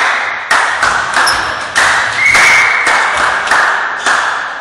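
Regular thuds, about one every half to two-thirds of a second, each ringing on in the sports hall's heavy echo.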